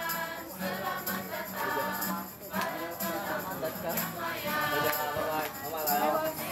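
Background music with singing voices over a shaker and a repeating bass note.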